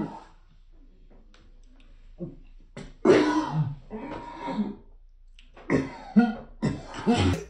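A person coughing and clearing her throat several times in short bursts.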